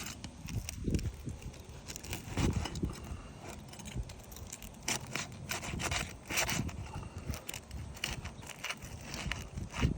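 Footsteps scuffing and crunching on a shingle roof: a run of short gritty scrapes and clicks.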